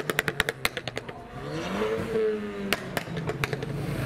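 Tuned small hatchback exhaust giving a rapid string of pops and crackles off the throttle. About halfway through the engine revs once, rising and falling, then crackles again.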